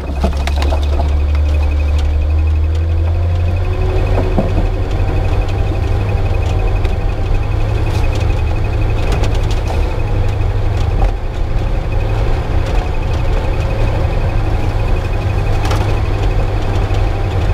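Suzuki Jimny Katana's F10A four-cylinder engine running steadily through a 4-into-1 header exhaust while driving over a rough trail, under a heavy low rumble, with a few short knocks from the vehicle over bumps.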